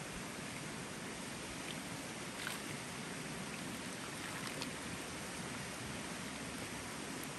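Steady hiss of background noise, with a few faint clinks about two and a half and four and a half seconds in.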